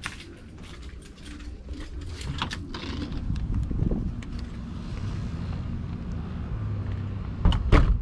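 Rustling and knocks of a carried camera being handled, over a steady low hum, with two loud thumps close together near the end.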